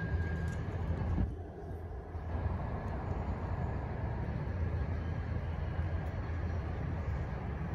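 Busy city street ambience: a steady low rumble of passing traffic, easing briefly about a second and a half in. A short high beep sounds right at the start.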